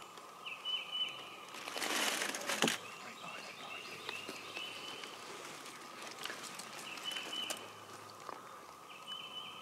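Quiet woodland ambience with a bird singing short, repeated chirping phrases over a steady faint background hum. About two seconds in there is a brief rustle of movement that ends in a sharp click.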